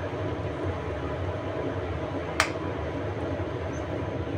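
A slotted spatula stirring patties in thick mushroom gravy in a pan, over a steady low hum, with one sharp click about two and a half seconds in as the spatula knocks the pan.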